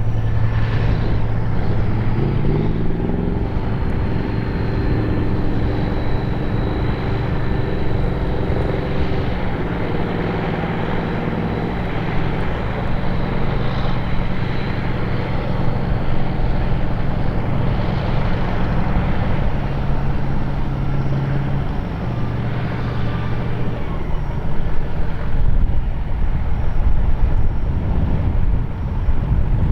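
Big diesel engines of classic articulated four-wheel-drive tractors working under load as they pull multi-furrow ploughs: a steady, deep drone of several engines overlapping. One engine's pitch steps up a couple of seconds in, one tone drops away about eight seconds before the end, and the sound grows louder in the last few seconds.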